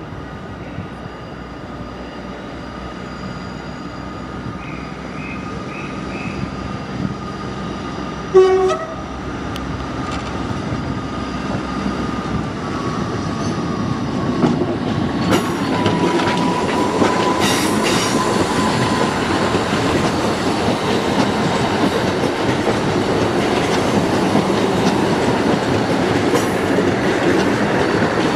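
A train on track, growing steadily louder as it nears and passes, its wheels rumbling and clicking over the rails. A short horn blast sounds about eight seconds in, and a steady whine drops slightly in pitch midway through.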